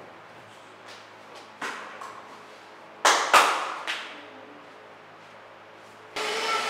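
Sofa cushions being plumped and patted into place: a soft thump, then two loud slaps in quick succession about halfway through, and a lighter one just after. Near the end a vacuum cleaner's motor cuts in abruptly and runs steadily.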